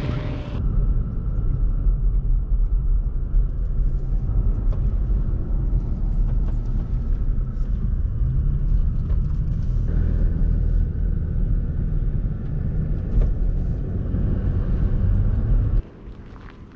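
Toyota Tacoma pickup driving: a steady, heavy low rumble of engine and road noise, which stops abruptly shortly before the end.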